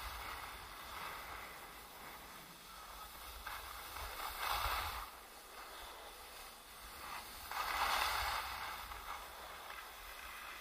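Skis sliding and scraping over hard snow, growing louder twice as the skier turns, over a steady low rumble of wind on the microphone.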